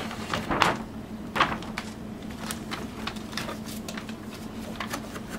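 Rustling and scattered crackles of a large glossy paper poster being handled and moved aside, over a faint steady hum.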